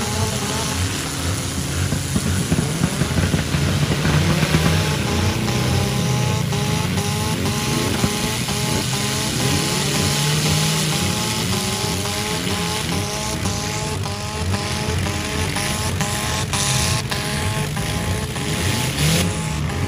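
Several four-cylinder demolition derby cars' engines revving up and down over one another, with repeated short rising revs through the middle. A few sharp knocks come near the end.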